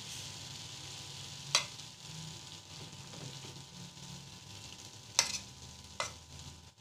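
A metal spoon stirring and scraping cooked methi and potatoes in a hot metal pan, over a faint sizzle from the pan. Sharp metal clinks come about one and a half seconds in, twice near five and six seconds, and once more at the very end.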